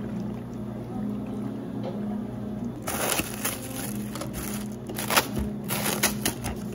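Iced tea poured over ice into a tall plastic cup. About three seconds in, plastic cling wrap is stretched and crinkled tightly over the cup's top in a run of sharp crackles.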